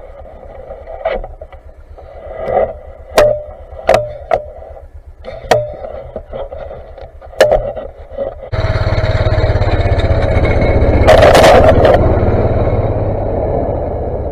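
A snowplow vehicle's engine: a low idle under scattered clicks and knocks, then, about eight and a half seconds in, it suddenly runs much louder while the plow works past, with a loud scraping rush near the middle of that stretch before it slowly fades.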